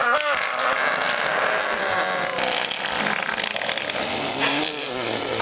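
Several children making vocal sound effects with their mouths at once: a continuous noisy din, with a voice wavering up and down near the start.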